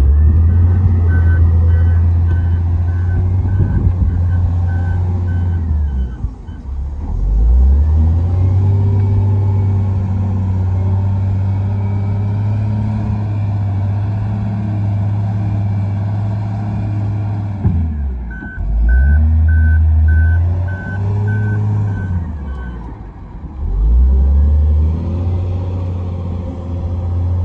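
Volvo wheel loader's diesel engine working under load, its revs dropping and climbing back several times as it shuttles back and forth. Its reversing alarm beeps steadily, about one and a half beeps a second, for several seconds at the start and again about two-thirds of the way through.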